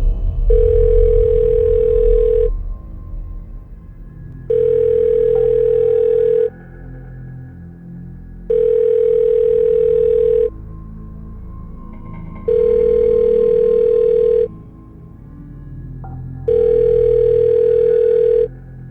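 Telephone ringing tone heard on the line: five steady two-second beeps at one pitch, each followed by two seconds of quiet, over soft background music. A loud, low swell of film music fades out in the first two seconds.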